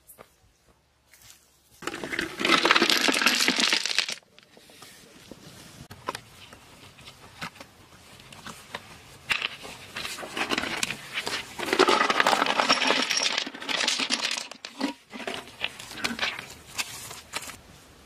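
Loose sandy soil being dumped and scraped during digging: two long gritty rushes full of small crackles, about two seconds in and again from about ten seconds, with lighter scraping and knocks between.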